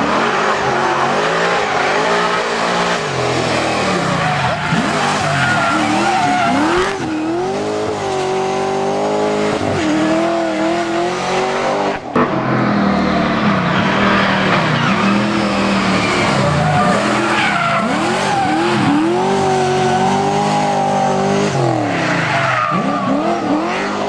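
Hill-climb race car engines accelerating hard uphill, revs climbing and dropping back again and again through gear changes, with tyres squealing. The sound cuts off abruptly about halfway through and another car's run takes over.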